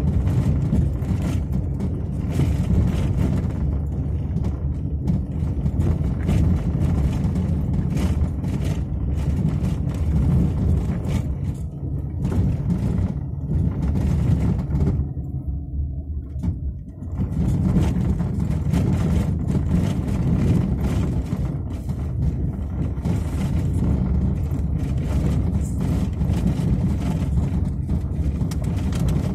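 Car driving on a loose crushed-stone road: a steady low rumble of tyres and engine, with frequent short clicks from the loose stone. About 15 seconds in, the rumble drops away for a couple of seconds, then comes back.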